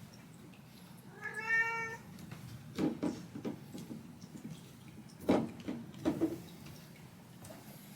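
Domestic cat meowing once, a short call about a second in, followed by a few short knocks and thumps, the loudest about five seconds in.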